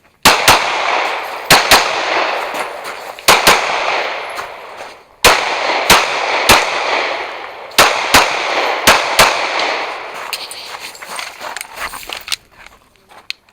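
Pistol shots fired during a timed stage, about a dozen, mostly in quick pairs a second or two apart. Each shot is followed by a long echoing decay.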